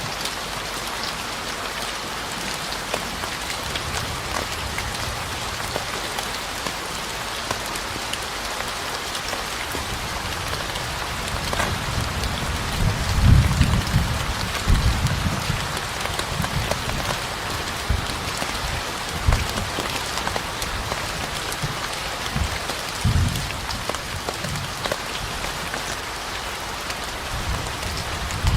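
Steady rain pattering on a surface, an even hiss with scattered drops. A low rumble swells in the middle and dies away, with a couple of shorter low rumbles later.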